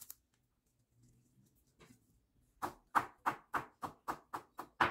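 Knife chopping curry leaves on a wooden cutting board: about nine quick chops, roughly four a second, starting about halfway through.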